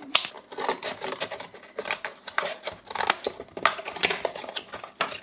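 Small kraft cardboard box being opened and handled by hand: an irregular run of scrapes, rubs and light clicks as the tuck flap is pulled up and the cardboard slides against the fingers.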